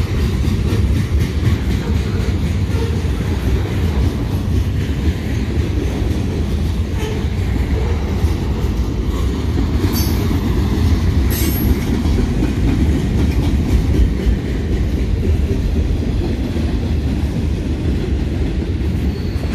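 Freight cars rolling past close by: a steady rumble of steel wheels on rail with a light rhythmic clatter. About halfway through come two brief high squeals, a second and a half apart.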